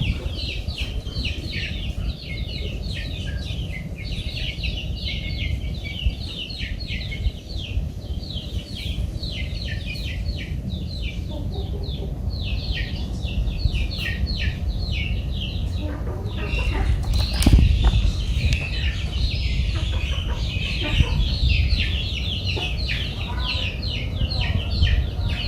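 Birds peeping continuously: many short, high, falling chirps, several a second. About 17 seconds in comes a brief flurry of wing flapping as the sick chicken being given an antibiotic injection struggles.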